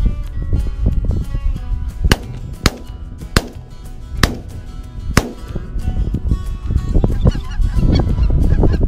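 Geese honking overhead while shotguns fire about five shots in quick, irregular succession over some three seconds, over wind rumbling on the microphone.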